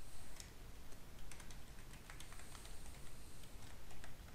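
Typing on a computer keyboard: an irregular run of key clicks as a line of code is retyped.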